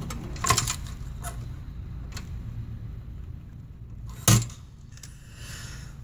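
Small hand tools, a soldering iron and a pick, clicking and tapping against a circuit board during component removal: a quick cluster of clicks early, a couple of light single taps, and one louder sharp knock about four seconds in, over a low steady hum.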